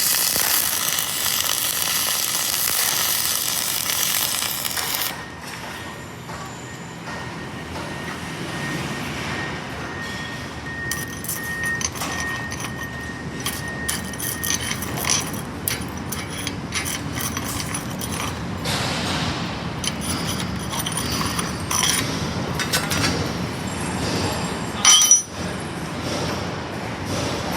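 Self-shielded flux-cored welding arc (Innershield wire fed from a wire feeder) crackling and sizzling steadily, then cutting off about five seconds in. After that come scattered clicks and light metal clinks, and a single sharp, loud knock near the end.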